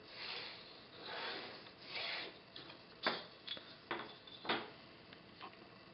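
A drawing tool scratching across paper as the horizon line is drawn. There are a few longer rubbing strokes first, then shorter, sharper strokes from about three seconds in.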